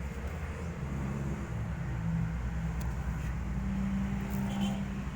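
A motor running steadily with a low hum, its pitch wavering slightly.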